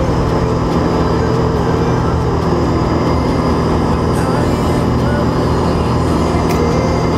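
Single-engine aerobatic plane's piston engine and propeller running steadily, heard from inside the canopied cockpit.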